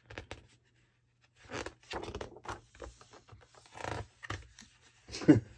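Large glossy pages of a big hardback book being turned and smoothed flat by hand: soft rustling and sliding of paper. A short vocal sound near the end.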